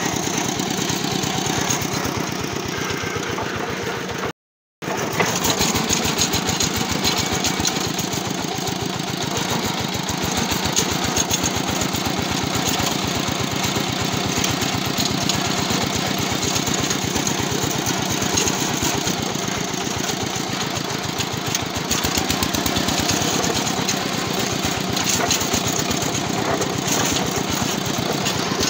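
Single-cylinder diesel engine of a two-wheel walking tractor running steadily while under way, a rapid, even chug of firing pulses. The sound cuts out completely for about half a second around four seconds in.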